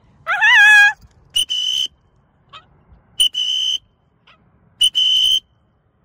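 A high, wavering call at the start, then a whistle blown in three short blasts about a second and a half apart, each a steady high note of about half a second.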